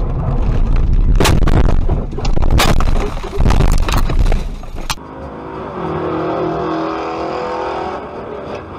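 A car leaving the road onto the rough verge and ploughing into trees: heavy rumbling and buffeting with several sharp crashes of impact over about five seconds. After that a steady pitched tone is held for about two and a half seconds.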